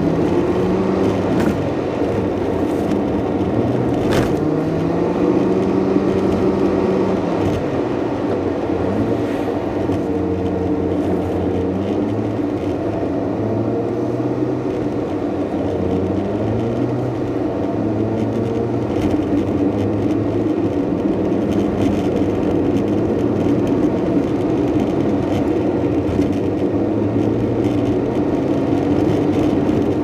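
Car engine and tyre noise heard from inside a moving car, steady throughout, with the engine note rising and falling as the car speeds up and slows through the curves.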